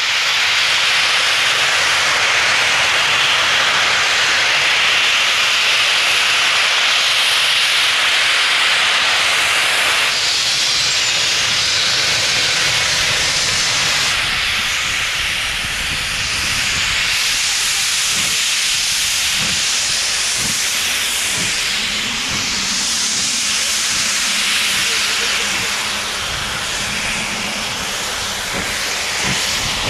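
Steam locomotive letting off a loud, steady hiss of escaping steam, easing a little about ten seconds in. In the second half, irregular low rumbles join the hiss as the engine edges forward.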